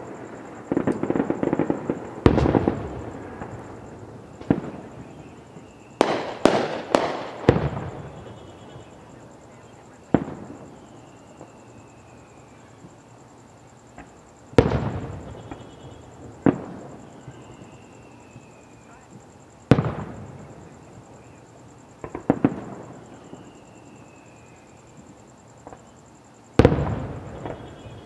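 Aerial fireworks shells bursting in a show. The bangs come singly at irregular intervals, each with a fading echo; a burst of crackling sits at the start, and a quick run of four bangs comes about six seconds in.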